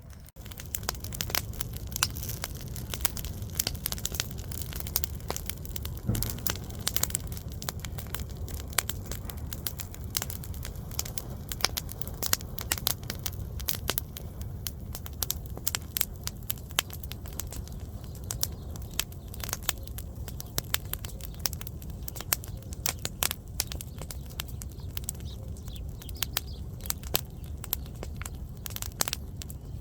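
Campfire burning: a steady low rumble of the flames under frequent, irregular sharp crackles and pops of burning wood.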